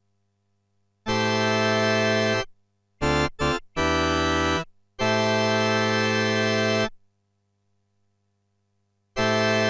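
Casio Casiotone 610 electronic keyboard playing a series of held notes or chords with a steady, unchanging tone. Each starts and stops abruptly, with silent gaps between: a long chord about a second in, two short stabs and another chord around three to four seconds in, a longer chord from about five seconds, and another near the end.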